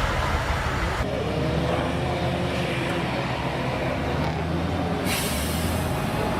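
MAZ-537G heavy off-road truck's V12 diesel engine running, with a short hiss of released air about five seconds in.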